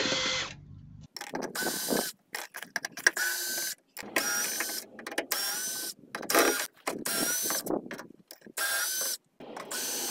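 Cordless drill-driver backing out T30 Torx screws from a BMW i3 high-voltage battery pack lid: a string of short whirring runs of the motor, each with a slightly rising whine, about eight in all with brief pauses between.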